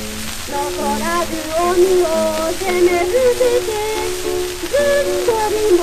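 A female voice sings a Japanese school song (shōka) over a steady accompaniment on an early Taishō-era Nipponophone 78 rpm disc. The recording carries constant surface hiss and crackle.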